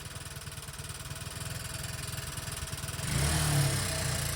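Honda FTR223 motorcycle's air-cooled single-cylinder engine idling with a rapid clattering knock, getting louder about three seconds in. It is an abnormal engine noise that set in after the throttle was opened, the sign of a failing engine.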